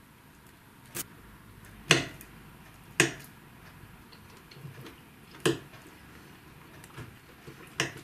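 A fork clinking against a plate as it picks up food: five short sharp clicks, the loudest about two and three seconds in, with a few fainter ticks between them.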